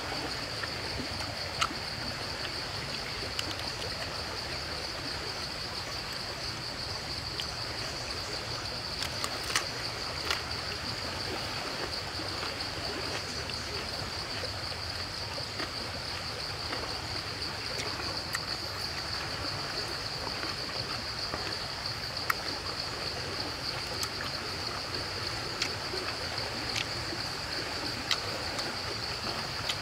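Steady outdoor ambience: a constant high-pitched insect drone over an even hiss, with scattered faint clicks.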